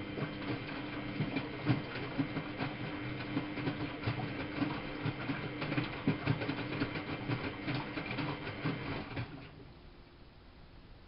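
Miele Novotronic W830 washing machine's motor turning the drum, a steady hum with rattling and clicking. It stops suddenly about nine seconds in.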